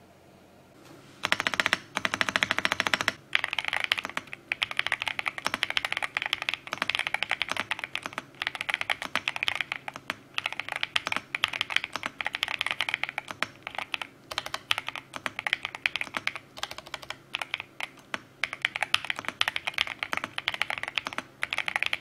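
Fast typing on an INFIVERSE INFI75 mechanical keyboard: a dense, rapid stream of key clicks that starts about a second in and goes on in bursts with brief pauses between them.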